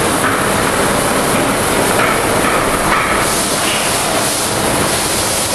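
Schiess vertical turning lathe running, its table turning a heavy steel workpiece under the cutting tool: a loud, steady mechanical noise.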